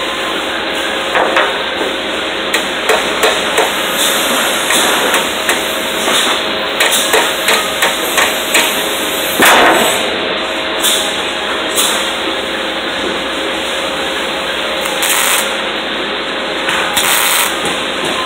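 Hammer striking metal at a weld seam: a run of sharp metallic taps, several a second at times, with one heavier blow about halfway through, over a steady background hum.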